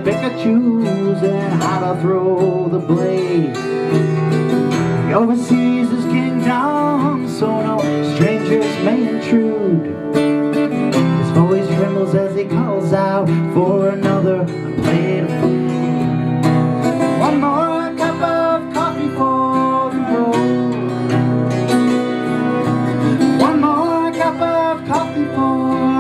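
Live acoustic band music: a strummed acoustic guitar with keyboard, and a man's voice singing a melody over them.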